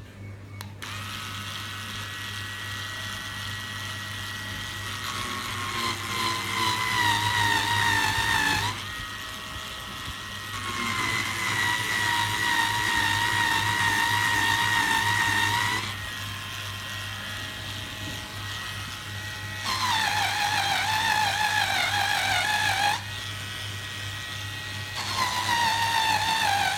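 Electric polisher switched on about a second in and running with a loud grinding noise, the same noise the unit it replaced made. Its whine swells louder four times, the pitch sagging each time, then eases back to a quieter, steadier run in between.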